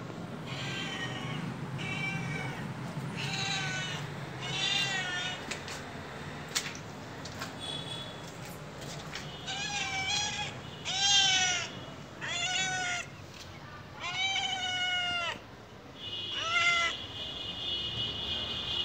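Ginger tabby cat meowing repeatedly: about nine separate meows, each arching up and falling, with a pause in the middle. The longest and loudest come in the second half.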